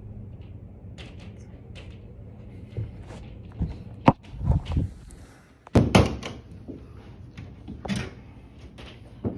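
Hammer striking the top hinge of an interior door, a series of sharp metal-on-wood knocks, the loudest about six seconds in, with fainter taps near the end.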